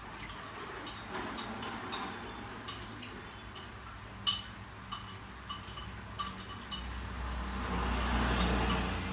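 Irregular sharp clicks and taps, with a few faint high chirps. A low rumble swells toward the end.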